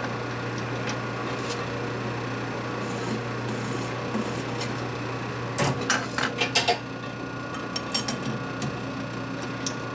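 Metal lathe running with a steady hum, with a quick run of metal clinks and clatters about six seconds in and a few more later, as metal parts and tools are handled.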